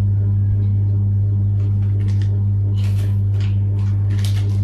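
A steady low hum underlies everything. Over it come short crinkling rustles of a paper manual and plastic packaging being handled, about two, three and four seconds in.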